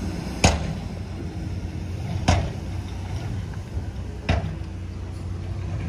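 Heavy diesel machinery engine running steadily, with three sharp knocks about two seconds apart, each ringing briefly.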